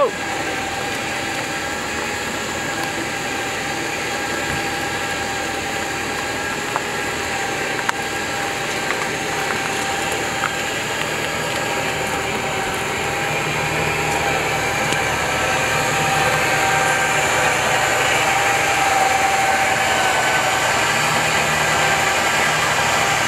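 Electric winch on a Ram Rebel's front bumper mount reeling in its rope under load as it drags a car, a steady motor-and-gear whine that grows gradually louder toward the end.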